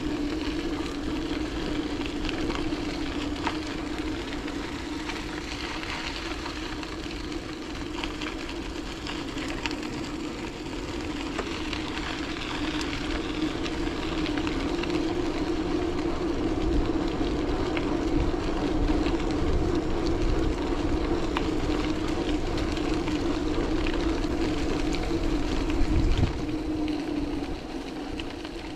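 Bicycle riding noise: tyres rolling with a steady hum over rushing noise, with scattered small clicks and rattles. It gets louder in the second half, and a thump comes near the end.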